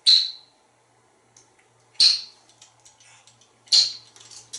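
African grey parrot making three short, sharp kissing smacks, about two seconds apart.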